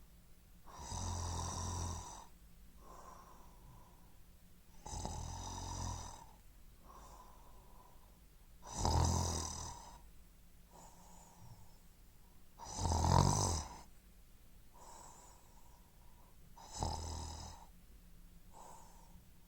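A person snoring in slow, regular breaths: five loud snores about four seconds apart, each lasting a second or so, with a softer breath between each; the third and fourth snores are the loudest.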